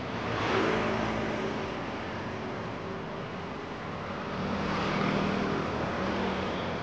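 Motor scooters passing on a motorcycle ramp over steady traffic noise, swelling twice: about half a second in and again around five seconds.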